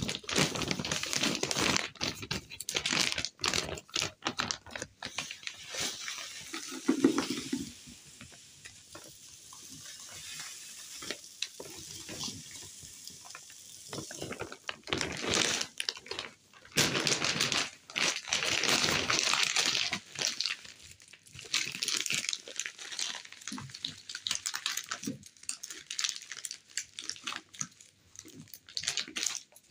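Plastic detergent bag crinkling and rustling, and powdered laundry detergent pouring with a hiss through a plastic funnel into a bottle. There is a dull thump about seven seconds in, and more crinkling of the bag near the end.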